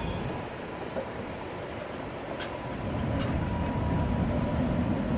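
Historic tram running along its track: a steady low rolling rumble with a faint thin whine and a couple of light clicks, growing louder after about three seconds.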